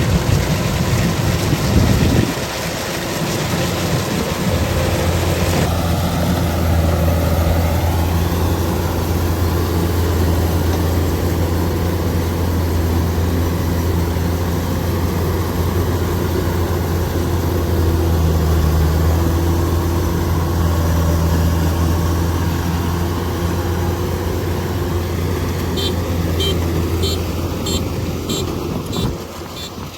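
Heavy machine engine, most likely a rice combine harvester's, running steadily at an even low pitch, with a short run of high ticks near the end.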